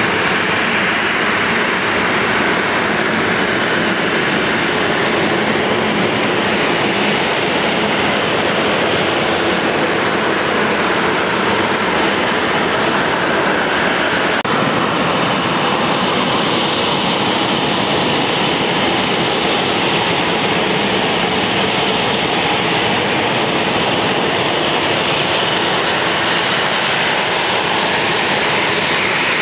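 Boeing 737-800 jet engines running at taxi power, a loud, steady jet noise that shifts slightly in tone about halfway through.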